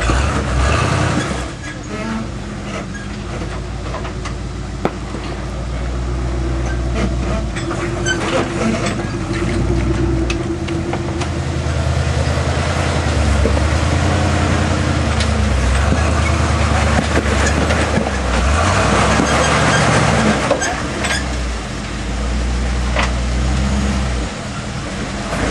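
Off-road International Scout's engine running and revving under load as it crawls up a slick rock ledge, swelling louder through the middle and easing off near the end, with a few sharp knocks.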